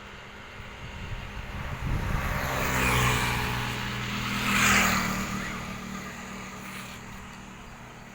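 Road vehicles passing close by: engine and tyre noise swells to a peak about three seconds in, peaks again a little louder near five seconds, then fades away.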